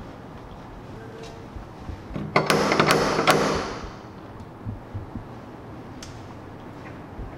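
A door being handled and opened: a quick cluster of latch and handle clicks with a rattle about two and a half seconds in, followed by a few faint clicks.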